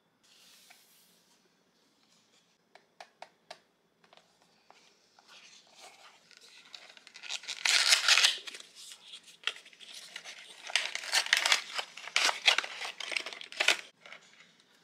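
Thin paper-card product box being opened by hand. A few light clicks come first, then rustling and tearing of paper and card, loudest around the middle and again near the end.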